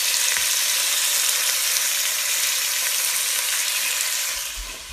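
Raw grouse meat sizzling as it fries in a hot Dutch oven, a steady hiss that fades somewhat near the end.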